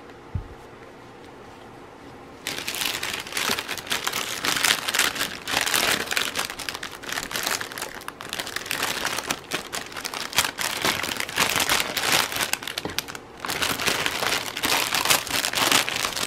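Clear plastic packaging crinkling and rustling as hands dig through it. It starts sharply about two and a half seconds in after a quiet start, with a short lull about three seconds before the end.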